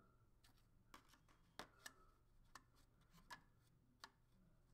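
A handful of faint, sharp clicks and taps as a 2nd-generation Apple Pencil is handled against the side edge of an iPad Air and snapped on magnetically; the sharpest two come close together about a second and a half in.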